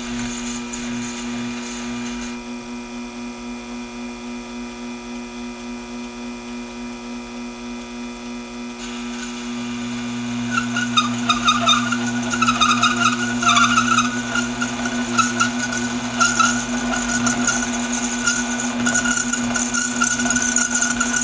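Taig mini lathe running with a steady motor hum while the feed is paused to let a stringy chip break. About ten seconds in, the tool goes back into the 304 stainless steel and a wavering squeal and scraping from the cut join in, louder from then on.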